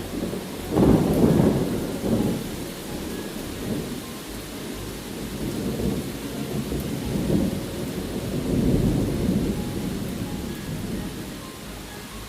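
Steady rain with rolls of thunder: a loud deep rumble about a second in, and a second, longer roll in the latter half.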